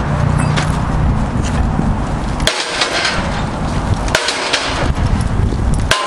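Halligan bar's forks prying a padlock off a steel post, with three sharp metallic snaps: one about two and a half seconds in, one at about four seconds, and one near the end, as the lock is forced. A steady engine rumble runs underneath.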